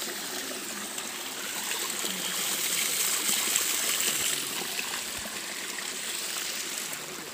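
Cold spring water pouring steadily from a bamboo pipe spout and splashing onto the ground, running over a foot and then a hand held in the stream. The splashing is a little louder in the middle.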